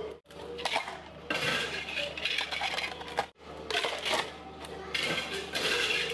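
Ice cubes rattling and clinking into clear plastic cups in several short bursts as the cups are filled with ice.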